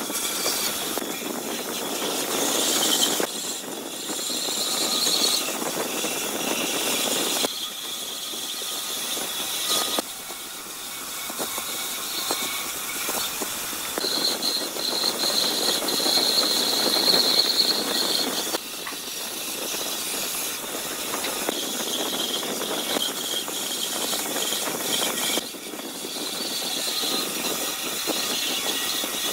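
Woodworking power tools running and working wood, with a high whine, in several short clips that change abruptly every few seconds.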